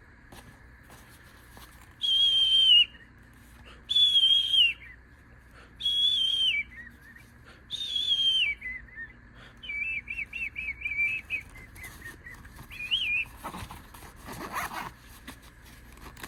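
Whistling: four long high notes, each sliding down at its end, followed by a quick warbling run of short notes and one last short warble.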